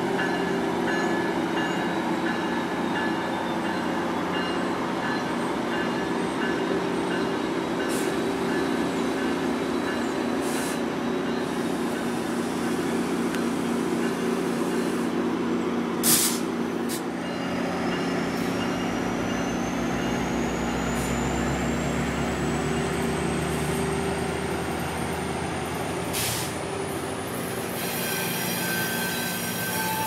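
GO Transit bilevel passenger coaches rolling along the rails with a steady rumble. A few sharp clicks sound over it, the loudest about halfway through, and a thin whine rises slowly through the second half.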